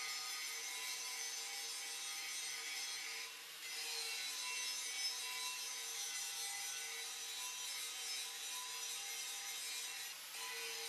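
Angle grinder grinding paint off the steel rim of a tractor wheel: a steady high whine with a harsh grinding hiss, which drops away briefly twice, about a third of the way in and near the end, as the disc eases off the metal.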